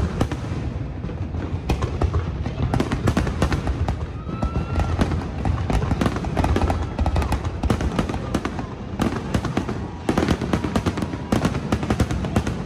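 Fireworks display: aerial shells bursting in quick succession, a dense, continuous run of bangs and crackling.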